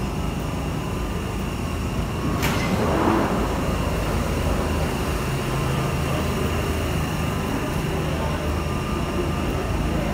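London Underground Jubilee line train at the platform: a steady low rumble, with a sharp click and a short hiss about two and a half seconds in.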